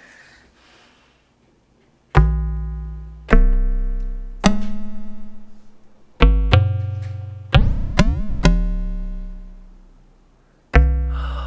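Make Noise Eurorack modular synthesizer played through a low-pass gate, most likely the new DXG dual stereo low-pass gate: after about two seconds of near silence, eight deep, plucky notes, each with a sharp attack and a slow decay into darkness, the struck-and-fading character of a low-pass gate. Midway through there is a short warbling sweep in pitch.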